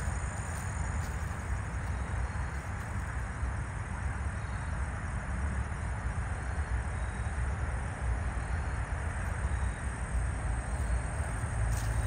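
Steady outdoor background noise: a low, wavering rumble under an even hiss, with a few faint short high chirps.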